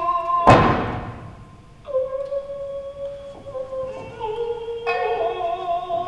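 Tokiwazu accompaniment: a loud thump about half a second in, then a long held chanted note that slowly steps down in pitch, with shamisen notes plucked again near the end.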